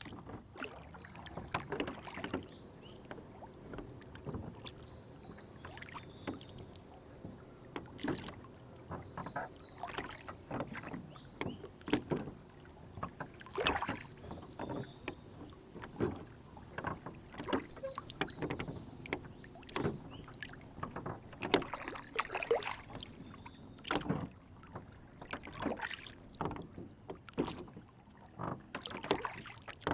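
Water lapping and slapping against the hull of a rowboat swaying on a lake, with irregular small splashes and knocks.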